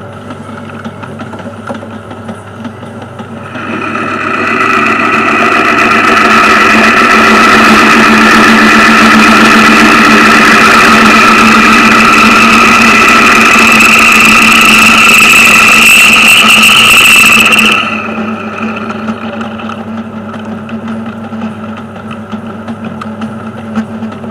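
Metal lathe running with a steady hum while a cutting tool enlarges the centre hole in an aluminium workpiece: about three seconds in a loud, ringing cutting noise with several held high tones starts, rises slightly in pitch, and stops sharply about fourteen seconds later as the cut ends, leaving the lathe running on.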